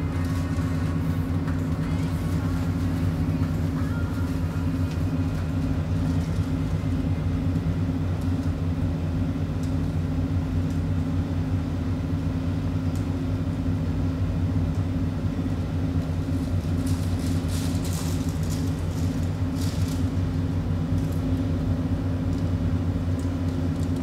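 Steady, loud low rumbling drone with a fast, fine throb; a few faint high scrapes near the end.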